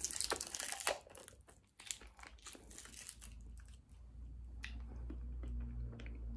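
A person chewing and crunching a sour hard candy close to the microphone: dense crackly clicks and crunches for the first three seconds, thinning out after that. A low rumble comes in about four seconds in.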